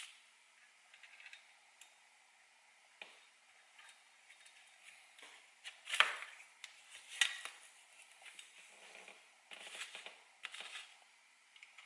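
Small hardware being handled: scattered light clicks and knocks of plastic and metal parts, the sharpest about six seconds in and again just after seven, with a short run of rattling near the end.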